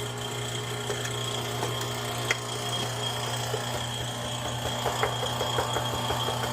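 Residential air-conditioning condensing unit running during a refrigerant pump-down, its compressor humming steadily with a thin steady high whine over it and scattered light clicks.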